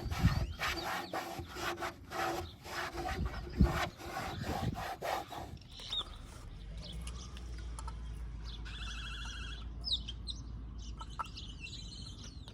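Quick back-and-forth wiping strokes, scrubbing glass cleaner off the dirty fog light mounting area, for about five and a half seconds, then the wiping stops. Faint bird chirps follow.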